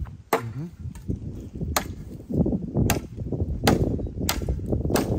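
Machete chopping into a wooden pole: sharp, separate blows, about six of them, roughly one a second.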